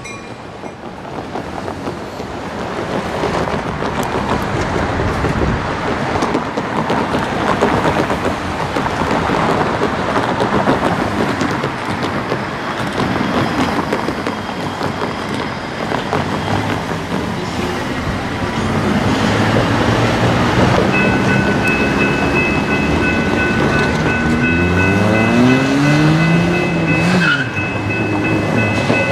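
Road traffic running across a railroad grade crossing, with a steady rush of passing cars. Near the end, a vehicle engine accelerates with rising pitch, dropping back as it shifts gear, and a steady high-pitched tone sounds over it.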